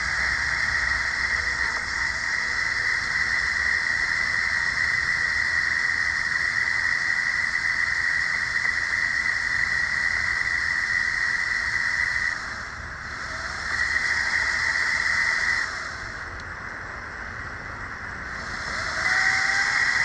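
48 V, 2 kW electric mini bike's motor and chain drive whining steadily at cruising speed with a hiss. The whine cuts out briefly about two-thirds of the way in, then again for a few seconds, as the throttle is let off. It comes back near the end with a rising tone as the bike speeds up again.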